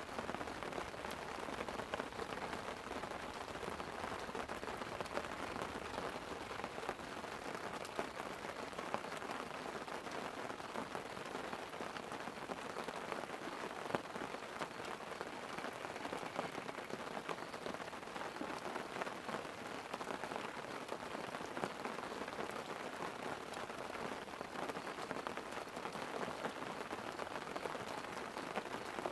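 Light rain falling on a tent: a steady hiss made of many small, close-spaced drop ticks, even throughout.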